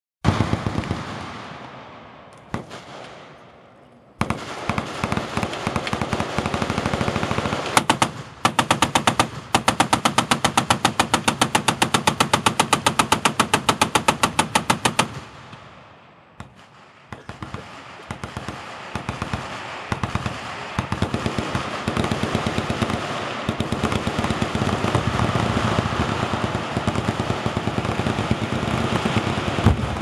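Massed machine-gun fire: several guns firing long bursts together in a dense, rapid rattle. It opens with one loud bang that echoes away, and the firing drops out briefly just past the halfway mark before resuming.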